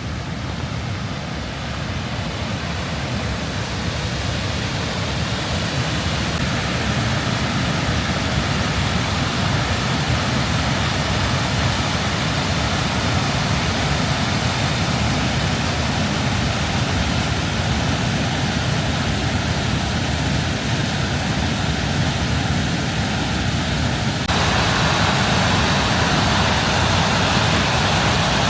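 Steady rush of a waterfall and its creek, growing gradually louder, then turning suddenly louder and brighter in its hiss near the end.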